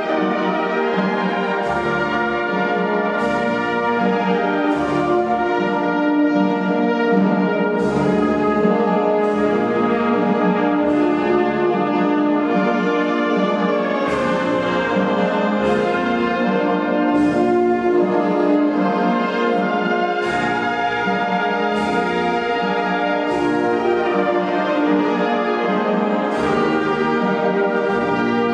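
Wind band playing a slow piece, brass and woodwinds holding full chords, with a percussion stroke on the beat about every one and a half seconds.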